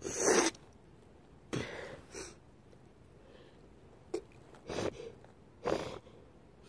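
A person with a cold sneezing: one loud sneeze right at the start, then several shorter nasal bursts spread over the next few seconds.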